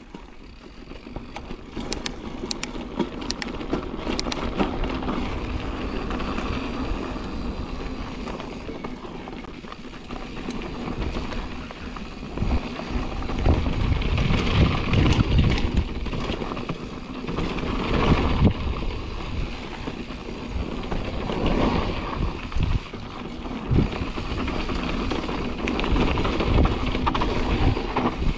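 Marin Rift Zone 2 full-suspension mountain bike being ridden on a dirt trail: a steady rush of tyre and trail noise with rattles and clicks, surging louder several times around the middle.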